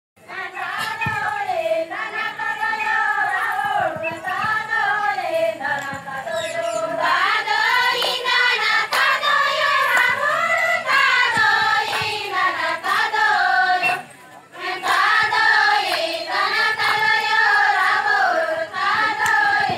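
A group of women singing a folk song together, in unison, with a brief pause about two-thirds of the way through.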